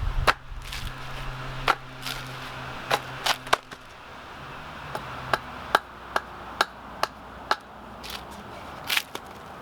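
Repeated sharp strikes of a tool biting into a wooden stump, about fifteen of them at an uneven pace of roughly one to two a second.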